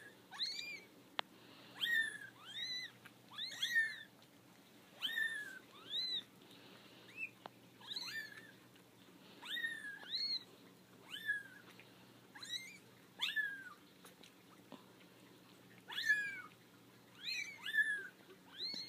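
Four-week-old kittens mewing over and over: short, high cries that rise and fall in pitch, one or two a second, with a few brief lulls. They are unsettled at being out of their basket for the first time.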